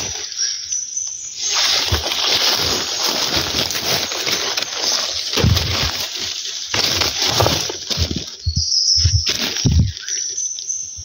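Rustling and crashing of dry leaf litter and brush, with footsteps and several heavy thumps, as someone moves fast through forest undergrowth.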